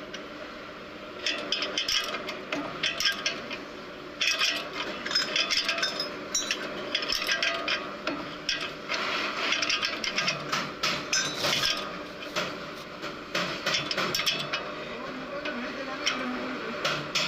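Metal hand tools clinking, tapping and scraping on car steering parts in irregular strokes, as a second-hand steering assembly is fitted and its linkage tightened.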